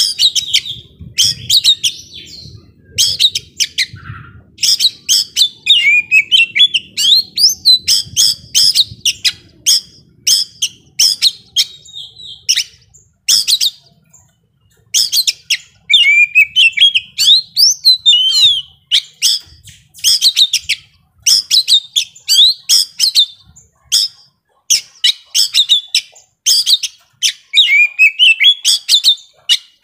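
Young Oriental magpie-robin singing a loud, fast, varied song of sharp chirps and whistled notes that slide up and down, delivered in long runs with a couple of brief pauses.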